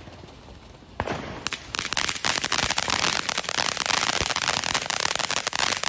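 Ground fountain firework spraying sparks: a soft hiss, a sharp pop about a second in, then from about two seconds in a loud, dense, rapid crackling.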